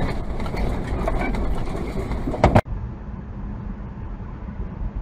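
Vehicle driving noise from a truck cab, a dense low rumble with a short, sudden loud sound about two and a half seconds in. Then quieter, steady road noise from a car.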